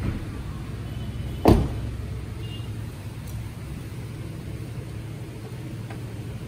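A car door of a Honda Amaze slamming shut once, about one and a half seconds in, over a steady low hum.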